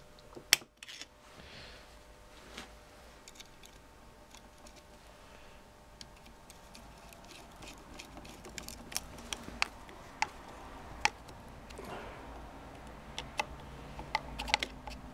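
Light metallic clicks and taps of a screwdriver working the small screws of a BMW ignition trigger housing, with one sharp click about half a second in and a run of scattered clicks in the last several seconds.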